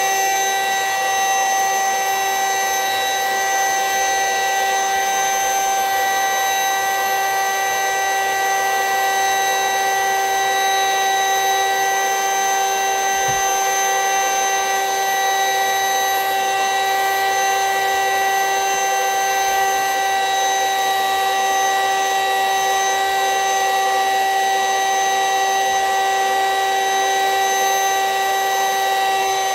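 Vacuum cleaner running steadily with a high whine, drawing the air out of a vacuum-seal storage bag packed with plush toys.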